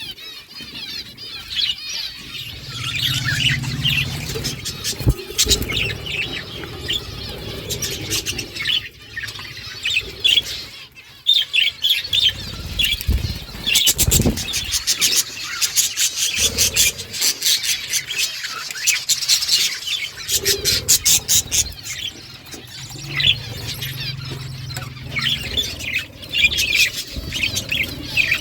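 A flock of budgerigars chirping and chattering continuously, with stretches of rapid ticking through the middle.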